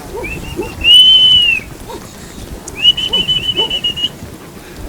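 A shepherd whistling to a flock of sheep: a few short chirps, a long high whistle that rises and falls about a second in, then a quick run of whistled notes near the middle.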